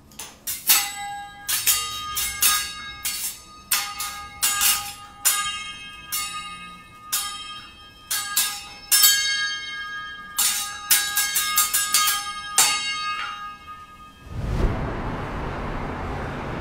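A teppanyaki chef's steel spatula and knife clanged together in rhythmic runs of sharp, ringing metal strikes. Near the end the strikes stop and a steady low wind-like rumble takes over.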